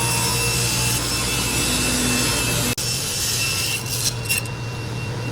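Power saw cutting wood, a steady motor hum under the noise of the cut. The sound breaks off for an instant a little under three seconds in, then goes on.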